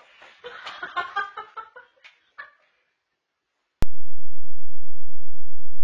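Short, pitched cries and yelps in quick succession for about two and a half seconds. Then a sharp click about four seconds in, and a loud, steady low hum starts abruptly and carries on.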